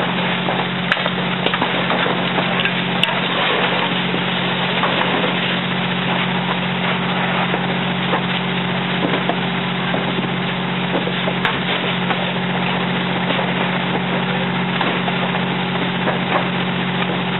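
Steady noise of a fully involved garage fire and hose streams over a steady low fire-engine hum, with sharp crackles and snaps from the burning wood now and then.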